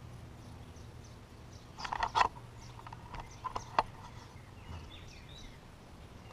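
Quiet outdoor ambience: faint bird chirps over a low, steady hum. A short burst of rustling and clicks comes about two seconds in, and a few sharp clicks follow shortly after, as things are handled.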